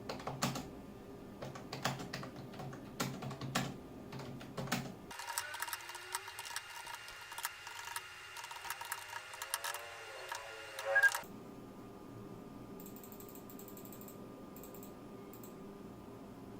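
Typing on a Flipkart SmartBuy wireless keyboard: irregular key clicks for about eleven seconds, ending with a louder clack, then it stops.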